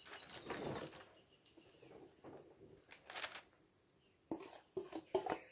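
Wooden spatula scraping a thick chocolate-and-nut mixture out of a stainless steel bowl. Soft, irregular scrapes come first, then a few light knocks of the spatula against the bowl near the end.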